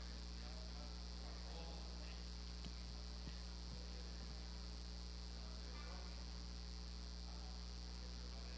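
Steady low electrical mains hum with a high hiss from the recording's sound system, with faint distant voices murmuring now and then and a couple of small clicks about three seconds in.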